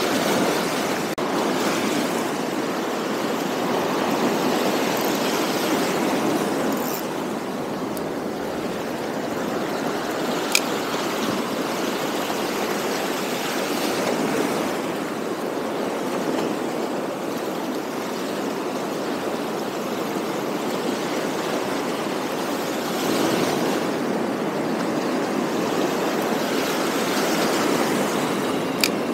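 Sea surf washing and foaming over shoreline rocks: a steady rushing that swells every several seconds as waves come in. Two brief sharp ticks, one about a third of the way in and one near the end.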